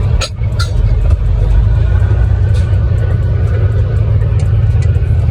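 Kenworth T660 semi-truck's diesel engine and road noise while driving: a steady low rumble, with a short click about a quarter second in.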